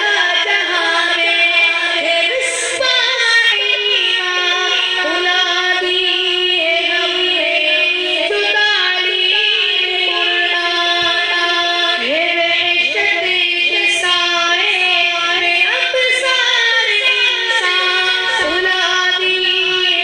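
A young, high voice singing an Urdu nazm in one long melodic line, the notes held and ornamented with slides between them, with no pause.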